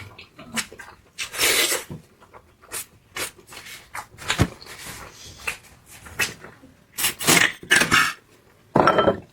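Close-miked eating sounds of a person chewing meat: irregular wet mouth and chewing noises, with a cluster of louder bursts near the end.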